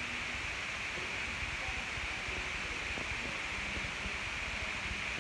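Steady background hiss with no rise and fall.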